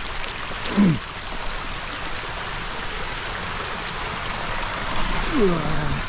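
Steady rush of rain-fed running water from a stream and waterfalls. Two short falling voice exclamations cut in, about a second in and again near the end.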